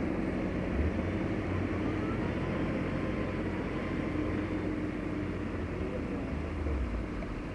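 Excavator's diesel engine running steadily, with a faint high creak or squeak rising about two to three seconds in.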